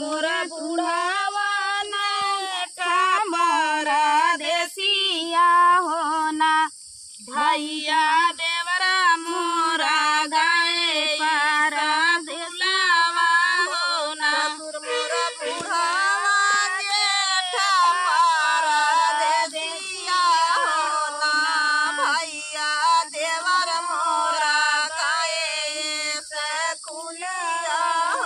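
Female voices singing a traditional dhaan ropai (paddy-transplanting) folk song in long, wavering sung lines, with a short break about seven seconds in.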